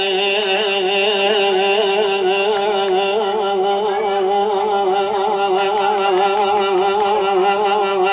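A single voice holding a long, wavering sung note with heavy vibrato and ornamentation, unaccompanied Arabic religious chanting without instruments or effects.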